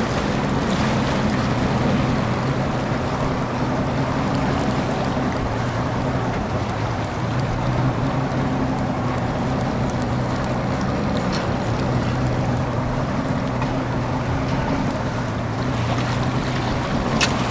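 Johnson V6 outboard motor running steadily at trolling speed, a constant low hum, with water washing past the hull.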